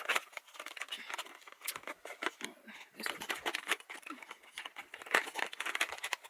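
Packaging crinkling and rustling in the hands as items are unpacked from a box, a dense run of irregular crackles.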